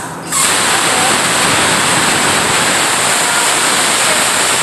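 Unitor plasma cutter torch cutting through a metal bar: a loud, steady hiss of arc and compressed air that starts abruptly just after a brief drop in the air hiss, then holds even.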